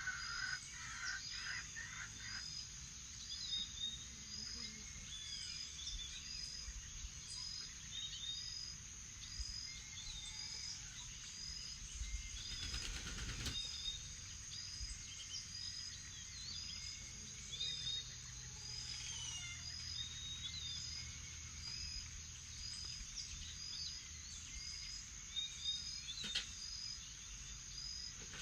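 Morning chorus of several birds calling over a steady high insect drone, with one short chirp repeating at an even pace, a little more than once a second. A brief burst of noise comes about halfway through and a sharp click near the end.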